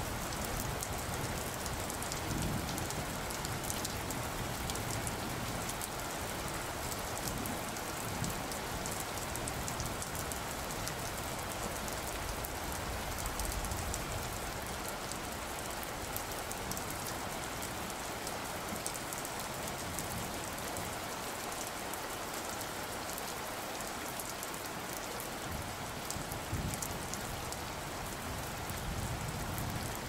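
Steady rain falling: an even, unbroken hiss of many drops.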